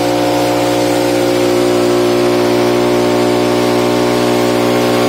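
Stanley air compressor's motor running steadily, with a continuous hiss of compressed air from the blow gun as dust is blown out of a desktop PC case.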